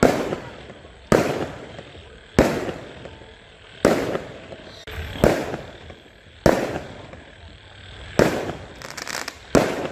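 Fireworks shells bursting overhead, one sharp bang about every second and a half, each trailing off in an echoing rumble. Near the end comes a quick run of crackling bursts, followed by another bang.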